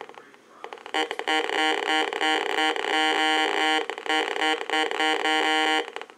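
Heathkit GD-1190 metal detector's speaker giving its buzzy electronic target tone, chopped into rapid pulses, as metal is passed over the search coil. The tone starts about a second in and stops just before the end.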